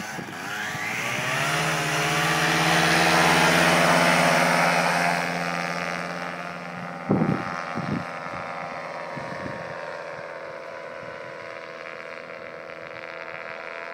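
Paramotor engine throttling up for takeoff, its pitch rising, then running steadily at full power and slowly fading as the pilot climbs away. A couple of brief thumps come about seven and eight seconds in.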